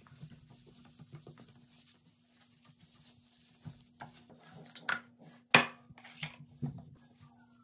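A cleaning cloth rubs faintly around a bathroom sink basin. Then come several sharp knocks of hard objects on the countertop, the loudest a single clack a little past halfway. A low steady hum runs underneath.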